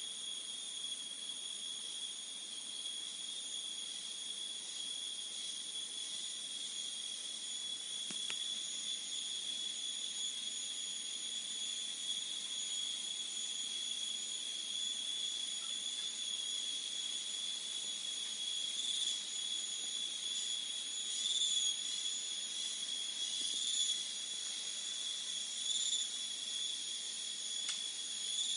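Crickets shrilling in a steady, high-pitched chorus. Over the last third, brief louder notes stand out every two seconds or so.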